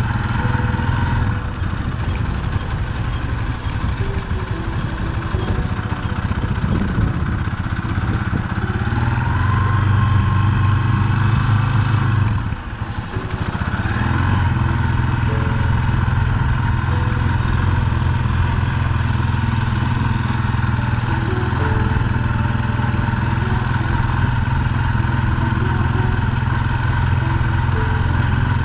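Motorcycle engine running steadily as the bike is ridden at an easy pace. About twelve seconds in the sound briefly drops away, then the engine picks up again.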